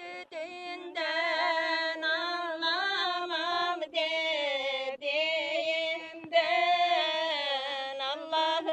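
A woman's voice singing a Turkish folk song (türkü) unaccompanied, in long held notes that waver and bend in pitch, with short breaks for breath.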